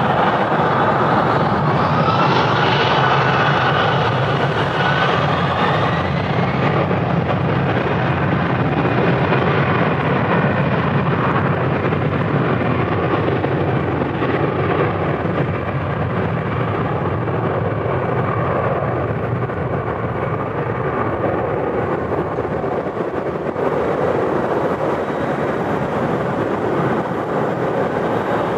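Airbus A321 jet engines at takeoff power, a loud, steady noise with a whine that rises in pitch in the first few seconds, then slowly fading as the plane moves away.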